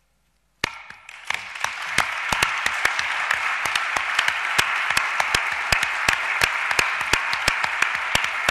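Audience applause, many hands clapping. It breaks out suddenly about half a second in with one sharp clap, swells over the next second or so, then carries on steady.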